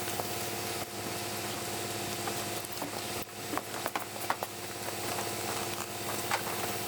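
A motor running steadily at an even pitch, with scattered light clicks and scrapes over it, busiest in the middle.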